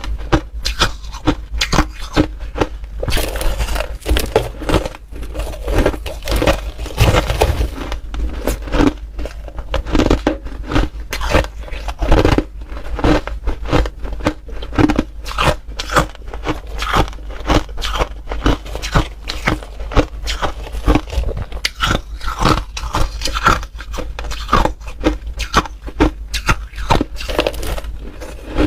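Crunchy ice being bitten and chewed close to the microphone, a steady run of sharp cracks and crunches, several a second.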